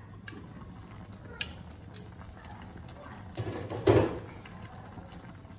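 Glass pot lid lifted off a pan of chicken stew simmering in evaporated milk, the liquid bubbling softly, with a few small clicks and a brief louder clatter about four seconds in.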